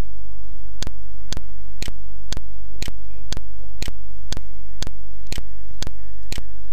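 Computer mouse button clicking at a steady pace, about two clicks a second, as image after image is skipped through. A steady low electrical hum runs underneath.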